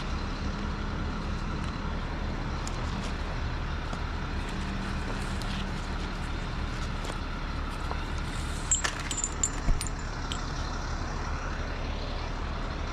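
An engine running steadily, with a few sharp clicks about nine seconds in.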